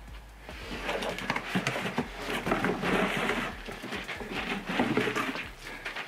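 Scuffing, rustling and light knocking as a wrapped Hoosier 11x5.5-6 treaded rubber tire is handled and set onto a metal stand, with many short knocks through a continuous scraping rustle.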